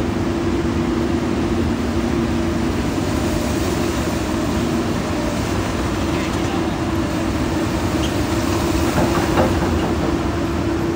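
Komatsu PC200 crawler excavator's diesel engine running with a steady drone, with the clatter of its steel crawler tracks.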